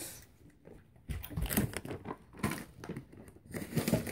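A plastic candy bag crinkling and rustling as it is handled, in short irregular crackles starting about a second in.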